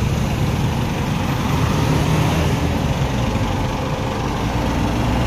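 Slow road traffic passing close by: a car rolls past, then a heavy truck comes up, its engine running with a steady low hum.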